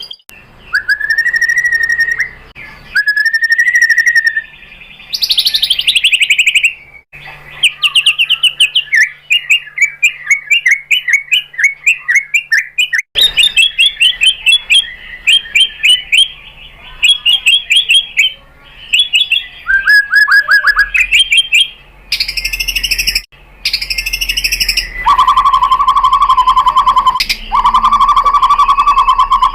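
White-rumped shama (murai batu) singing loudly: a varied string of clear whistles, fast repeated trill notes and chattering phrases that start and stop abruptly, ending with two long, steady whistles.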